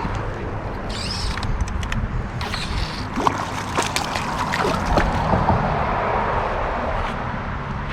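Rushing river water, with a few brief splashes and clicks scattered through.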